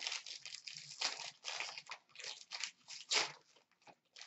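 Foil hockey card pack wrapper being torn open and crinkled by hand, a run of short crackling rips and rustles, the loudest a little after three seconds in.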